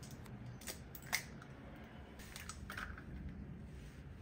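Eggs being cracked and their shells pulled apart over a bowl: a few sharp cracks and clicks, the loudest a little over a second in.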